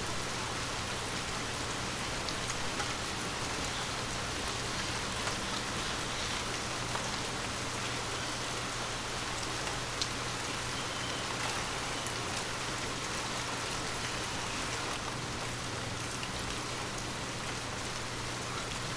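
Steady heavy monsoon rain, with scattered drop ticks and one sharper tick about halfway through.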